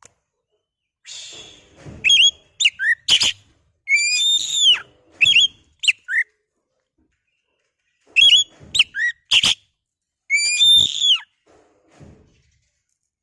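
Oriental magpie-robin (kacer) singing loud whistled phrases of gliding, rising and falling notes in two bouts with a pause between, as a lure song meant to set another kacer singing.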